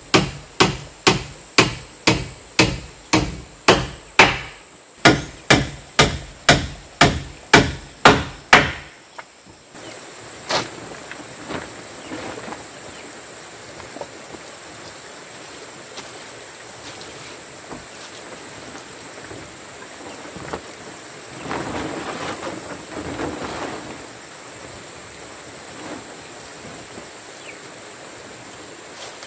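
Hammer driving nails into the boards of a wooden coop's roof frame, a steady run of sharp strikes about two a second that stops about nine seconds in. After that it is much quieter: a steady high whine, with some rustling about two-thirds of the way through.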